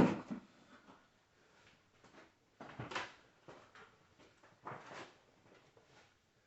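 A few short knocks and rattles of parts being handled during hands-on work: one sharp knock at the start, then two brief clattering sounds about three and five seconds in.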